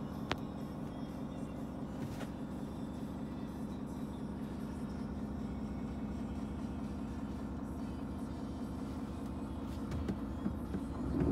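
Renault T460's six-cylinder diesel engine idling in neutral, a steady low hum heard from inside the cab, with faint radio music and a single click just after the start.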